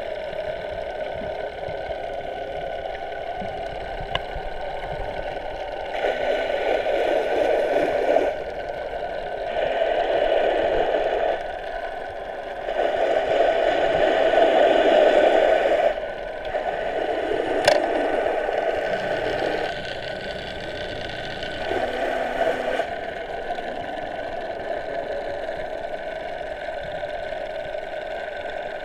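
A steady motor hum and whine heard underwater, swelling louder several times for two or three seconds at a time.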